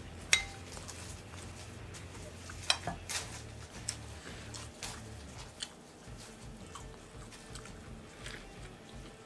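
A fork clicking and scraping against a plate, a handful of sharp clicks spread through, the loudest just after the start, with a person biting and chewing food.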